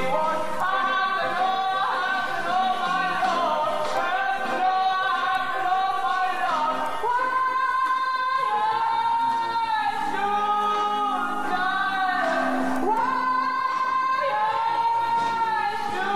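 A solo male singer holding long, high notes with a wavering vibrato, one phrase after another, in a rock-opera stage performance.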